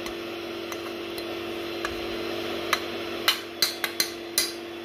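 A spoon knocking and clinking against a dish about six times in quick succession in the latter half, scraping out and smoothing freshly made lemon custard, over a steady hum.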